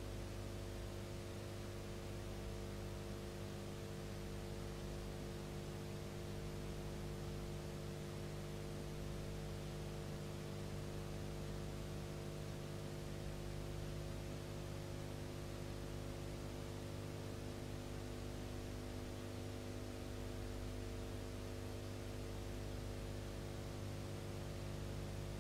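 Steady electrical mains hum with a constant hiss underneath and nothing else: the empty sound track of a silent film transfer.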